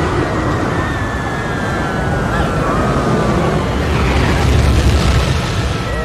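A film sound effect of a giant sandstorm rising: a dense rush of wind over a deep rumble that swells to its loudest about five seconds in, with faint sliding high tones over it early on.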